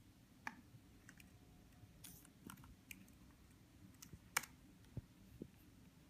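Scattered faint clicks and taps, about nine in all at an uneven pace, the sharpest about four and a half seconds in, over a low steady hum.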